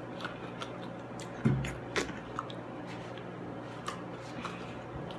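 Close-miked eating: chewing and mouth sounds with scattered small crunches and clicks, and one louder low thump about a second and a half in, over a steady low hum.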